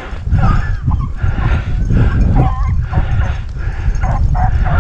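Rabbit hounds baying in repeated, bending cries while running a rabbit on its scent. A heavy low rumble runs underneath.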